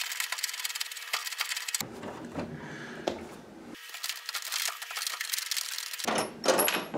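Scraping and rubbing on the wooden floor of a kitchen cabinet, thick with small clicks, as the top mounting bolts of an over-the-range microwave are backed out by hand. A louder clatter comes near the end.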